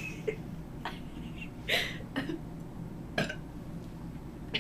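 Several short, soft burps from a young woman, the loudest a little under two seconds in.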